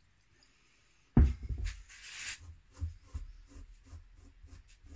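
A sharp knock on the wooden workbench about a second in, then a cloth rubbing over a clamped wooden box, with light irregular knocks and rustles of hands working around the clamps.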